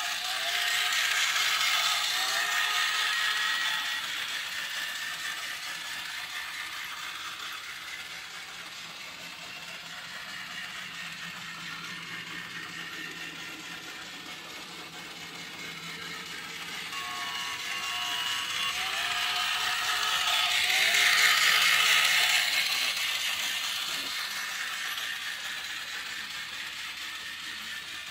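Toy train running around a Christmas-village track, its small motor and gears clattering steadily. The clatter grows louder as the train passes close, near the start and again about 20 seconds in, then fades as it moves away.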